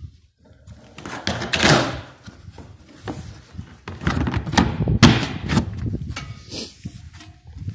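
Plastic filler lid on a field sprayer's tank being handled and shut: a series of knocks and scrapes of plastic on plastic, loudest about two seconds in and again about five seconds in.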